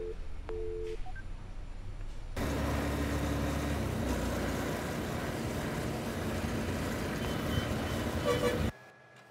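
A telephone busy tone beeps twice after the call has ended. Then, about two and a half seconds in, the steady road and traffic noise of a motorcycle ride starts, with a horn sounding for its first second or so. The ride noise cuts off suddenly near the end.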